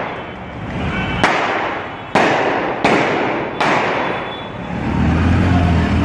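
Gunshots: four sharp bangs less than a second apart, each with a long echoing tail. A steady low rumble of traffic follows near the end.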